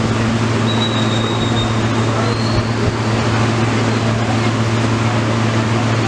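Outdoor city street ambience dominated by a steady mechanical hum, with a constant wash of background noise.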